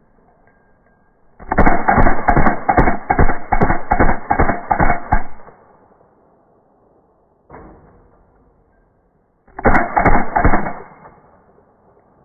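Rapid semi-automatic fire from a .22 LR M16-style rifle, slowed down in slow motion: a string of about ten shots over four seconds, a single sharp report about two seconds later, then a quick burst of three or four more shots.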